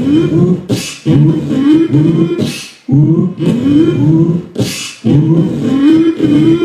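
Looped beatboxing through a Boss RC-505 loop station: a hummed vocal bass line sliding up and down, with a sharp hissing snare-like hit about every two seconds.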